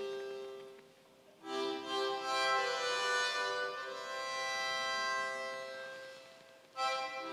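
Background music: a slow melody of long held notes that fades away about a second in, starts a new phrase, and fades again near the end before another phrase begins.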